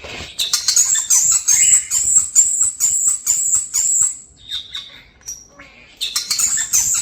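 Pet European starlings giving a rapid run of short, harsh, repeated calls, about three to four a second. They pause a little after four seconds and start again near six seconds.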